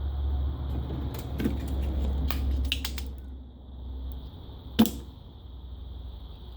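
Small clicks and taps of desoldering work, then one sharp snap about five seconds in from a spring-loaded solder sucker being triggered to pull molten solder off the board. A low hum underneath fades away about four seconds in.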